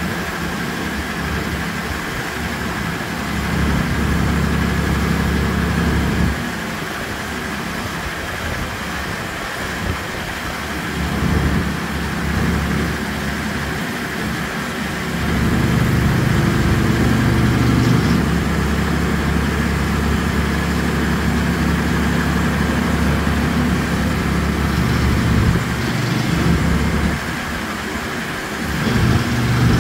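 Allis-Chalmers D19 tractor engine running. It picks up in speed and loudness for a few seconds early on, then again for about ten seconds from around the middle, and settles back near the end.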